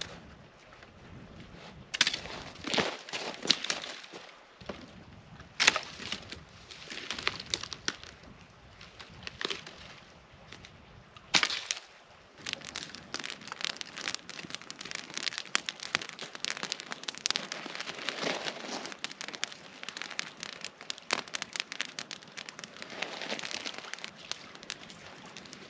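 Dry dead branches snapping with several sharp cracks during the first twelve seconds, among crunching steps over brush and sand. After that comes a dense, steady crackle of small clicks, from a small wood fire.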